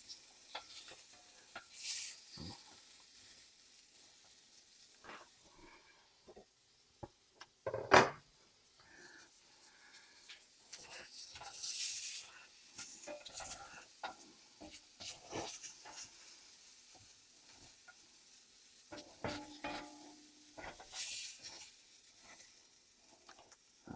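Spatula scraping and clinking in a stainless steel frying pan as the cooked shrimp are moved, with short spells of sizzling. One loud clank comes about eight seconds in.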